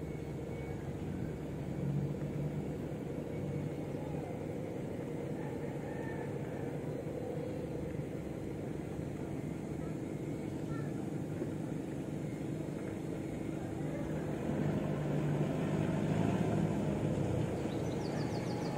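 Small motorboat's engine running as the boat approaches across the water, growing louder near the end.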